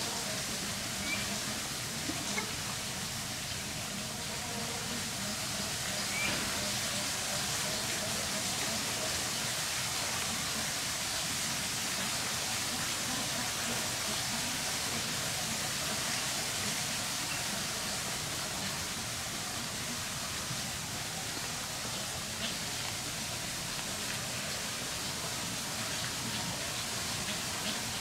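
Steady rushing hiss of running water in a bird enclosure's pool and stream, with a few faint short chirps in the first few seconds.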